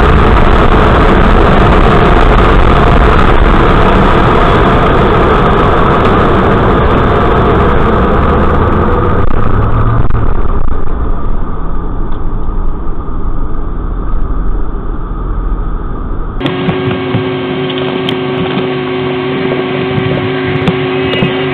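Car-wash machinery running with a loud, steady rushing noise. About sixteen seconds in, it changes abruptly to a quieter, steadier machine hum with several held tones.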